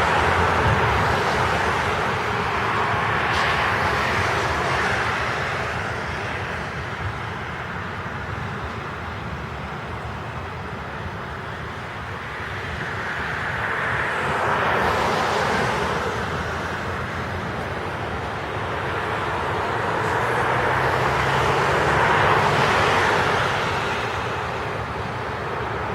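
Thunderstorm downpour hissing steadily, with long swells of noise that rise and fade over several seconds: near the start, about halfway through and again near the end.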